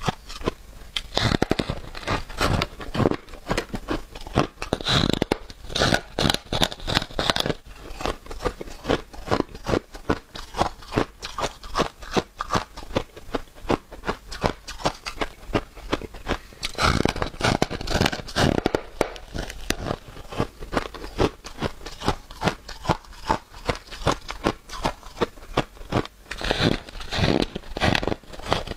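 Biting and chewing a slab of blue-dyed freezer frost: continuous crunching and crackling of flaky ice, with louder bursts of crunching at several points as fresh bites are taken.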